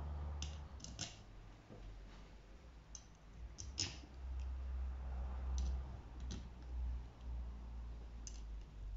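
Scattered light metal clicks as the screws and small parts of a Keihin 26/30 DC carburettor are handled and set against its body, over a steady low hum.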